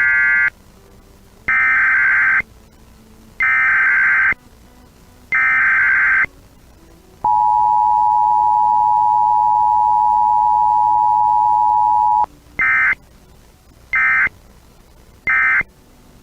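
Emergency Alert System signal. First come harsh, screeching SAME digital header bursts: a short one, then three of about a second each, roughly two seconds apart. Next the two-tone attention signal (853 and 960 Hz) sounds for about five seconds, and three short end-of-message bursts close it, with no voice message between.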